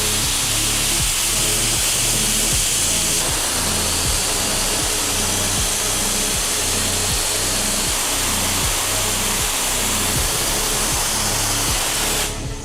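Steam locomotive venting steam: a loud, steady hiss that cuts off suddenly near the end. Background music with a regular beat runs beneath it.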